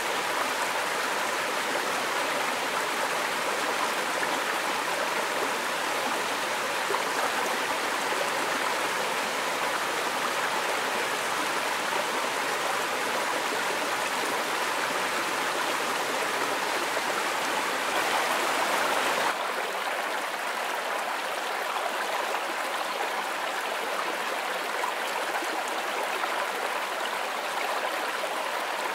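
Small woodland stream running over rocks in little cascades: a steady rushing of water. A little past halfway it changes abruptly to a slightly quieter, duller rush of the stream at another spot.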